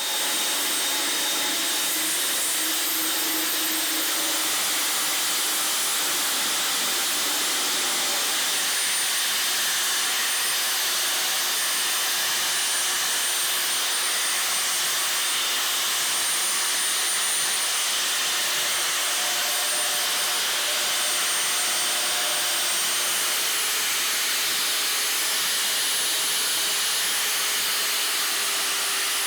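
A power tool or machine running steadily without a break, a loud even whooshing noise with a faint high whine over it.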